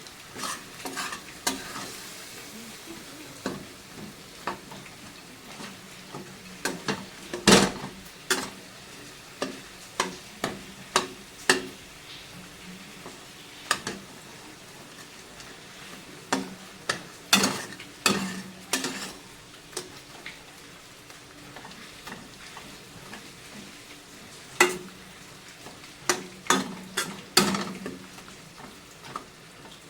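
A spatula (khunti) stirring and scraping a tomato and spice masala frying in oil in a pan, with irregular clinks and scrapes over a soft sizzle. The oil has separated from the masala, the sign that it is cooked through.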